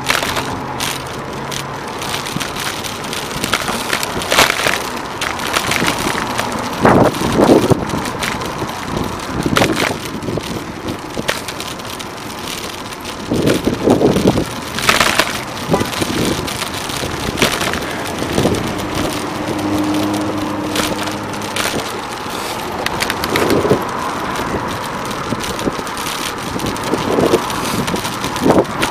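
Riding noise from a bicycle in city traffic: steady wind and road noise on the camera, broken by frequent crackling rattles. Cars run alongside, with an engine humming briefly at the start and again about two-thirds of the way through.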